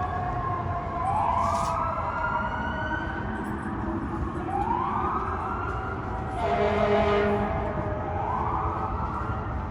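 Fire truck siren wailing in slow rising sweeps that repeat about every three and a half seconds, with a loud air horn blast of about a second a little past the middle. City traffic rumbles underneath.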